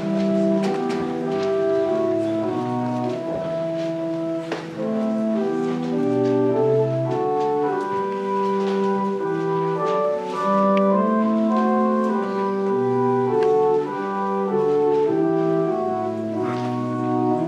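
Church organ playing a hymn introduction in slow, held chords that change about once a second, with no voices singing yet.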